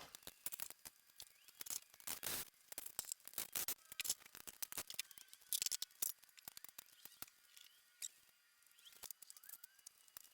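Hand-tool work on an engine: a run of quick, irregular metallic clicks and clinks, thinning out after about eight seconds.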